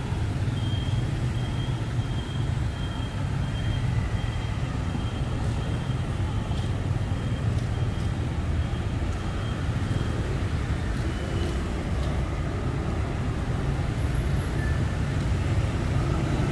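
Steady city street traffic noise, a continuous low rumble of passing vehicles, with a faint, high, intermittent beeping tone through the first part.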